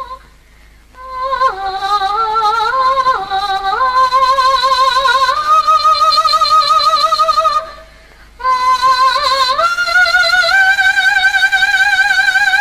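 Background music: a woman's voice singing a slow melody in long held notes with wide vibrato, stepping up and down in pitch and pausing briefly twice.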